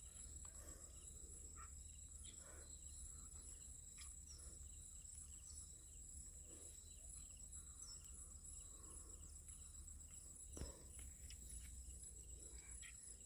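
Faint, steady high-pitched insect chirring with a few soft taps.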